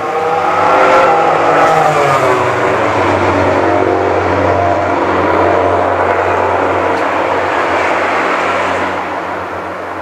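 MotoGP race-bike engine running: its pitch glides over the first couple of seconds, then settles into a steady drone that drops away near the end.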